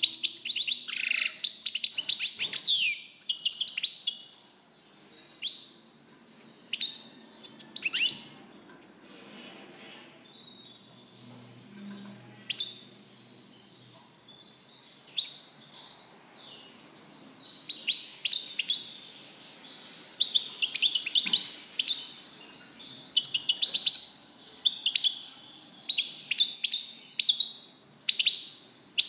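European goldfinch singing: a run of fast twittering song at the start, scattered short chirps through the middle, then dense, continuous twittering from about halfway on.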